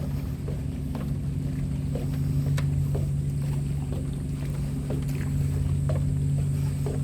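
A steady low motor drone holding one pitch, with faint scattered ticks over it.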